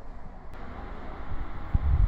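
Wind buffeting the microphone with a few low thumps near the end, over a rising distant rumble from an approaching Tokaido Shinkansen train.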